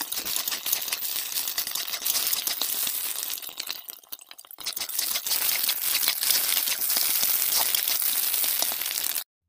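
Scrambled egg and onion sizzling and crackling in hot oil in a kadhai while it is stirred. The sizzle eases briefly about four seconds in, then cuts off suddenly near the end.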